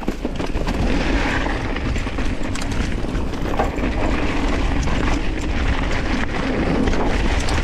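Mountain bike riding over a dirt and rock trail: steady tyre noise with frequent small rattles and knocks from the bike, under heavy wind buffeting on the camera microphone.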